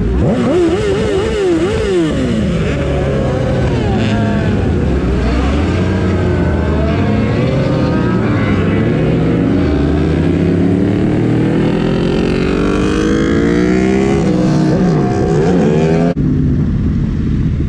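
Engines of a group of sport motorcycles riding together, several at once, revving and shifting so that their pitch rises and falls over and over. A long climb in pitch comes late on as the bikes accelerate, and the sound changes abruptly near the end.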